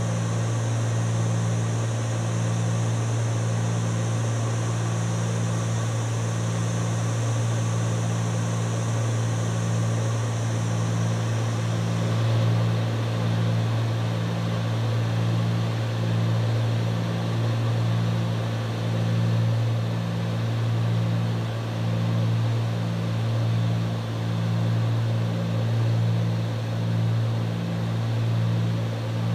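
Cessna 310's twin piston engines and propellers droning steadily in flight, heard inside the cockpit, with a slow regular throb roughly once a second. A high hiss drops away about twelve seconds in.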